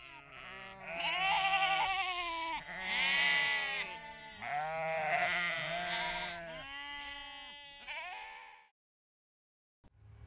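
A flock of sheep bleating, several animals calling over one another with wavering, quavering bleats, then stopping abruptly about a second before the end.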